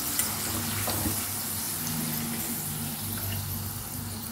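Banana slices deep-frying in hot oil, a steady sizzle, with a couple of light clicks of the wire skimmer against the pan about a second in. The chips are fried through and being lifted out.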